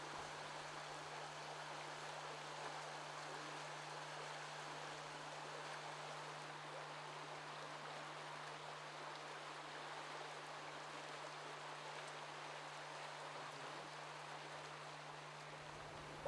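Faint, steady rushing of the River Kennet's flowing water, with a steady low hum underneath.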